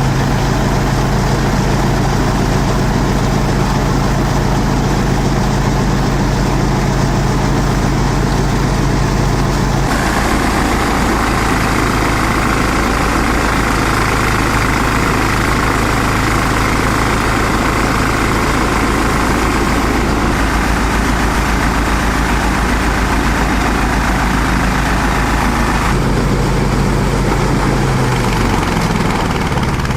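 Engine-driven chopper-shredder machine running steadily. From about ten seconds in until near the end, a band of rushing, mid-pitched noise rises over the engine's steady hum, then drops back, with a brief dip and wobble in the engine note near the end.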